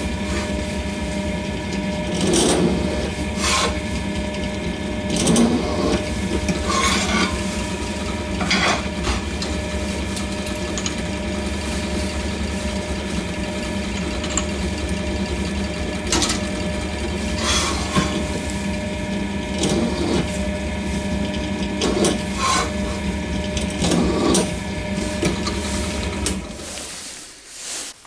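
Benchtop pillar drill motor running steadily with a constant hum, while the bit cuts into an aluminium block in a dozen or so short grinding bursts. The drill stops shortly before the end.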